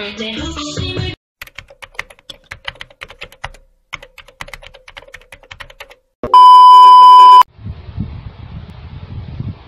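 A keyboard-typing sound effect: quick, irregular clicks for about five seconds while text appears on screen. It is followed by a loud, steady, high beep lasting just over a second, and then a low rumbling noise.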